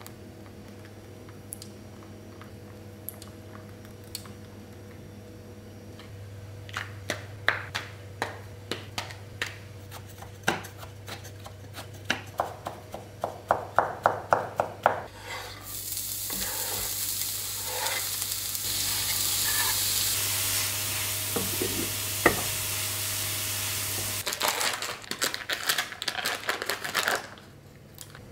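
Kitchen knife chopping mushroom stems on a wooden cutting board: separate knocks at first, then a fast run of strikes. About halfway through, a loud even sizzling of the minced mushroom mixture frying in a hot pan, ending in a burst of quick scraping clicks as it is stirred.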